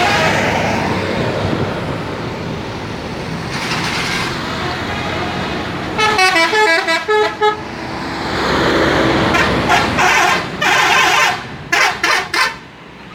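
Passing Purnayasa buses sounding telolet horns: multi-tone musical air horns playing quick stepped melodies in short blasts, about six seconds in and again in a choppy series near the end. Between the horn blasts, the buses' engines and tyres rush past.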